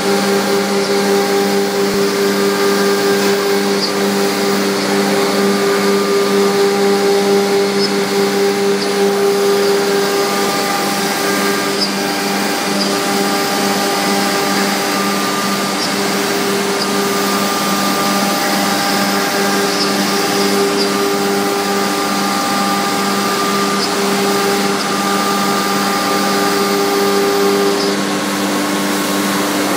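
2007 MultiCam 5205 CNC router spindle running steadily as it cuts grooves into a sheet. It makes a steady hum with higher whining tones above it, over the rushing hiss of dust-collection suction at the dust shoe.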